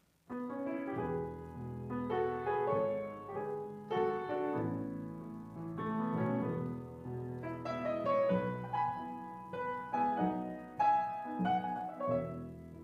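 Grand piano starting a piece, its first chord coming in suddenly just after the start, then a flowing melody over sustained chords.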